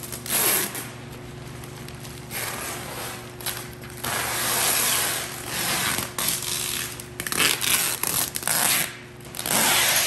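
Plastic mattress bag rustling and scraping in irregular bursts as the bagged mattress is handled, laid down and lifted back up.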